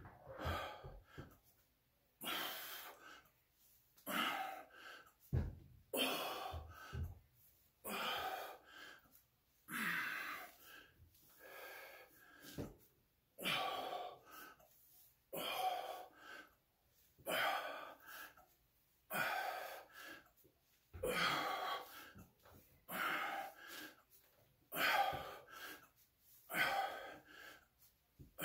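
A man breathing hard through repeated dumbbell lifts: short, forceful breaths about every second or so, one with each rep.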